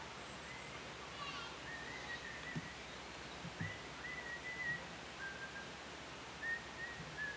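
Faint whistling: a string of high, thin notes, each held about half a second, at slightly changing pitches, with a few soft low thumps in between.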